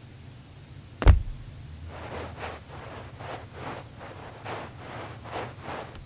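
A single heavy thump about a second in, followed by a run of soft, evenly spaced rustling swishes.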